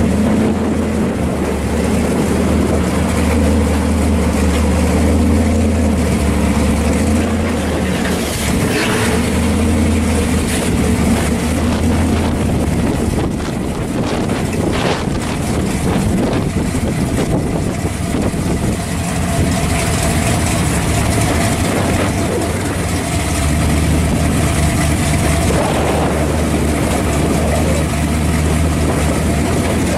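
Supercharged V8 of a 1974 Camaro Type LT pro street car idling steadily, a loud low running sound that eases off a little midway and comes back up.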